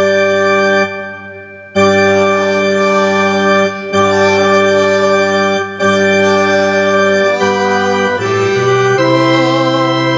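Organ playing held chords that change every second or two, with a brief quieter dip about a second in.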